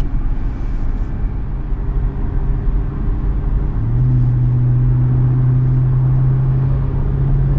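In-cabin engine and road noise of a 2016 Audi S6's twin-turbo 4.0 V8 with an aftermarket AWE Touring exhaust at highway speed. About four seconds in, a steady low exhaust drone at constant pitch comes in and holds, a little louder.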